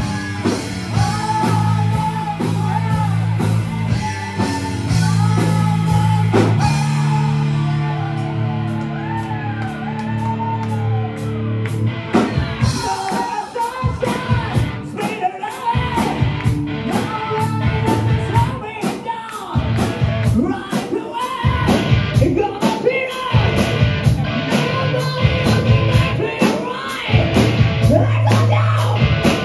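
Live rock band playing: a sung vocal over electric guitar, bass guitar and drums. About twelve seconds in, the vocal line gives way to a driving drum beat with fast, dense cymbal hits.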